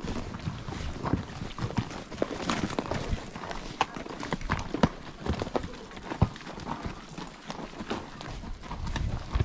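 Hooves of several saddle horses walking on a dry, stony dirt trail: irregular sharp clops, overlapping and uneven.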